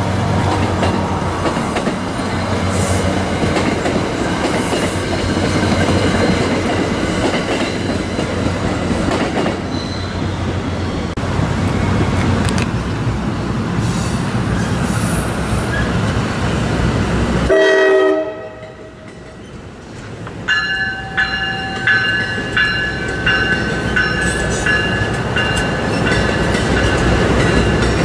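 Commuter train coaches rolling past close by in a steady rumble of wheels on rail. After a sudden break, a train of double-deck multilevel coaches goes by, with a run of wheel clicks over rail joints and high steady squealing tones from the wheels.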